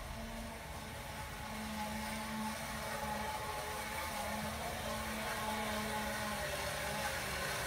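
Razor E-175 electric scooter's 24-volt motor whirring as it is ridden, a steady hum that drops out and comes back several times and grows louder toward the end as the scooter approaches.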